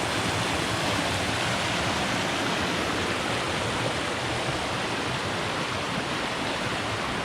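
Fast-flowing creek water rushing, a steady, even rush.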